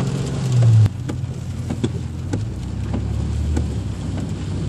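Car driving in heavy rain, heard from inside the cabin: a steady low rumble with raindrops ticking sharply on the glass and roof. A louder stretch of rumble cuts off suddenly about a second in.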